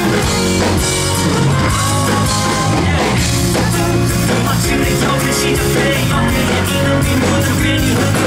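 A rock band playing live, loud and unbroken, with drums keeping a steady beat under the guitars.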